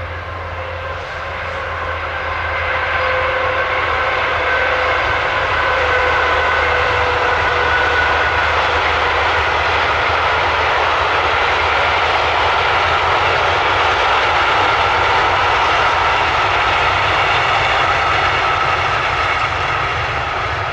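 Freight train rolling past at close range: a steady rush of wheels on rail from a long string of wagons, with a faint hum in a few tones that slowly drifts lower. It grows louder over the first few seconds, then holds steady.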